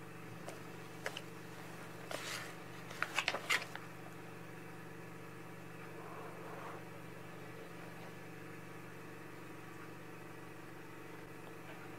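Magazine pages rustling and crackling as a page is turned, a few sharp papery strokes about two to three and a half seconds in, over a steady low electrical hum.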